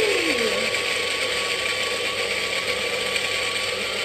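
Personal bullet blender's motor running steadily as it blends oats, egg, banana and milk into a batter.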